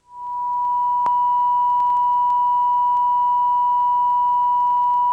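Broadcast off-air test tone: one steady pure tone that swells in over the first half second and then holds unchanged, with a faint click about a second in. It is the tone of a station that has gone off the air.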